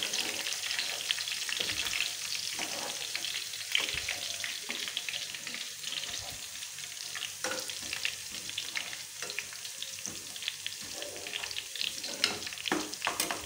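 Chopped garlic sizzling and crackling in hot oil in a steel pan, being lightly fried for a tadka, while a metal spoon stirs it with frequent clicks and scrapes against the pan.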